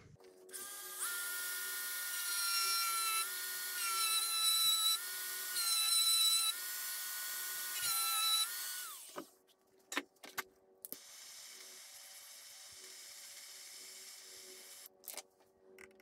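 Dremel rotary tool running at high speed, cutting a slot into the head of a sheared M3 bolt; its high whine shifts in pitch a few times as it cuts. It stops about nine seconds in, followed by a few sharp clicks.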